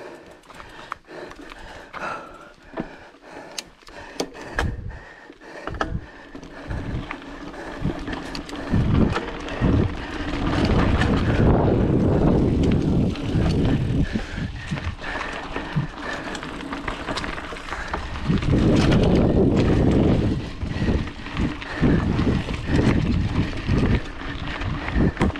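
Specialized Rockhopper 29er mountain bike riding a dirt trail, heard through a GoPro's microphone: tyre noise, clicks and rattles of the bike over the ground, and wind buffeting the microphone. It grows louder about eight seconds in.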